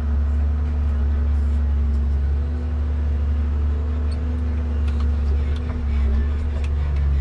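Komatsu 875 forwarder's diesel engine running steadily under load, heard from inside the cab as a deep, even drone while the hydraulic crane works the grapple. A few light clicks come through about five to six seconds in.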